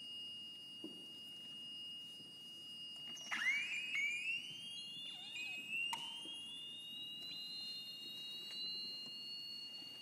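Sound installation giving steady high, pure tones. About three seconds in, with a click, a tone starts low and glides slowly upward, and a second rising glide joins it a couple of seconds later, with a few more clicks.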